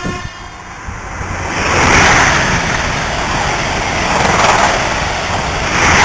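InterCity 225 express of Mark 4 coaches passing through at high speed without stopping: a loud rush of wheel and air noise that builds about a second in and swells several times as the coaches go by.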